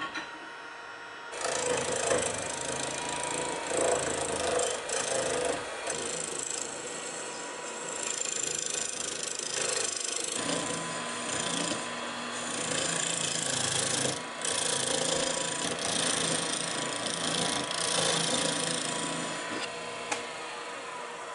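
Wood lathe spinning a resin-stabilised plywood disc while a turning tool cuts into its face. The tool makes a continuous rough scraping hiss that starts about a second in and swells and fades as it is worked, with a couple of brief breaks.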